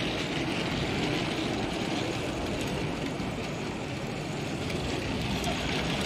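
A model train running along the layout's track, heard as a steady rumble under the even background noise of an exhibition hall.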